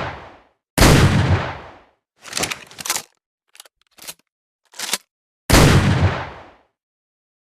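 Double-barrel shotgun sound effect: a loud shot about a second in with a long fading tail, a run of short clicks and clacks, then a second shot with a long tail near the end.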